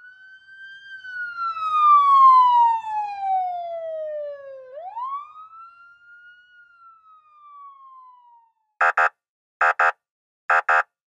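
Siren sound effect: a wailing tone rises, slides slowly down, sweeps up again and falls away. It is followed near the end by three quick double beeps, each pair about a second apart.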